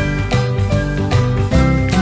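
Upbeat background music with a steady beat, bass and bright bell-like jingling notes.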